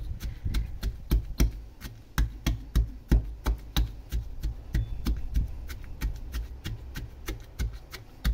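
Metal pestle pounding garlic with salt and pepper in a metal mortar: steady, even strikes at about three a second.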